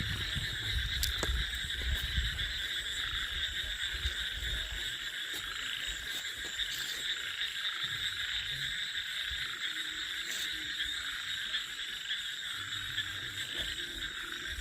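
A steady chorus of calling frogs and insects: a continuous dense trilling with a faint, fast, even pulsing above it. There is a low rumble in the first few seconds.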